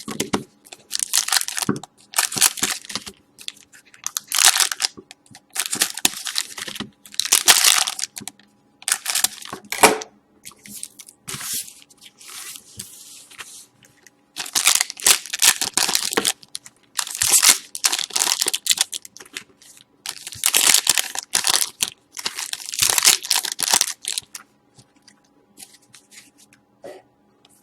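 2012-13 Panini Certified hockey card packs being torn open, their wrappers crinkling, in many short irregular bursts that grow fainter near the end.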